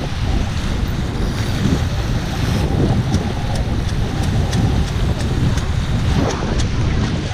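Wind buffeting the microphone over water rushing and splashing past the hulls of a small catamaran under sail at speed, with a few light ticks in the later part.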